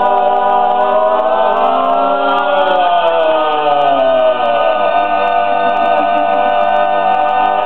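Male vocal quartet holding a long closing chord of a gospel song in close harmony. About three seconds in, the bass slides down to a low note and the chord is sustained.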